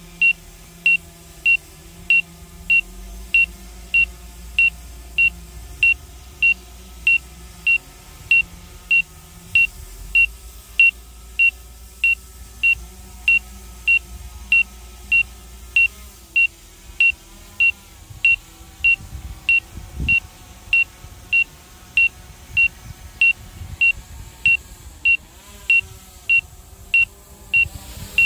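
Autel Evo I drone's low-battery warning: a short, high electronic beep repeating steadily, a little under twice a second, signalling that the drone's battery is running low.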